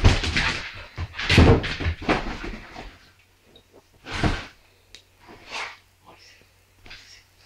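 Dog scrambling and thumping on a wooden floor and leather sofa, loud for the first few seconds, then a few scattered soft knocks.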